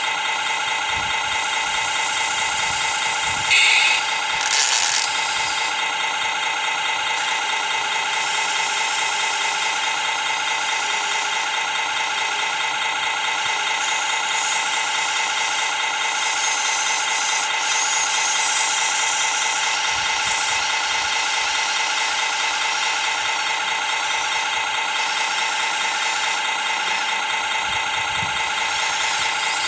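Radio-controlled model construction machines running with a steady, unchanging mechanical drone while a scale excavator digs mud and loads it into a model dump truck, with a brief louder clatter a few seconds in.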